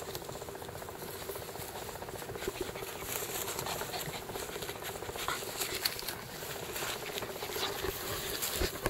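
Faint rustling and light pattering from young puppies moving and being rubbed on a fleece blanket and grass, with scattered small clicks.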